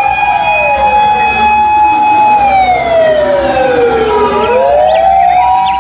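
Fire engine sirens: two overlapping siren tones, one held steady while the other slides down in pitch and climbs back up near the end.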